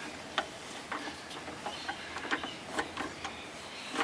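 Ratchet wrench clicking in short, uneven strokes, a few clicks a second, while a 27 mm deep socket on an extension backs out an engine oil pressure sensor.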